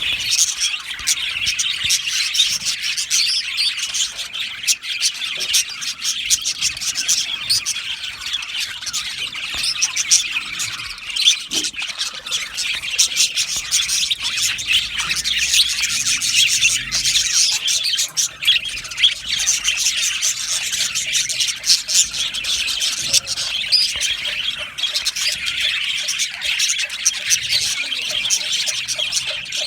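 A colony of budgerigars chattering: many birds chirping, warbling and squawking at once in a dense, continuous chorus.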